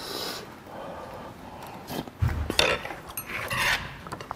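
Eating sounds of someone taking hot mung bean porridge from a metal spoon: short slurps, with the spoon clinking and scraping against the bowl.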